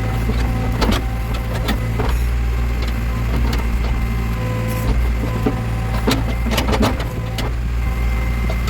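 Backhoe loader's diesel engine running steadily, with scattered sharp cracks and knocks, several of them close together about six to seven seconds in.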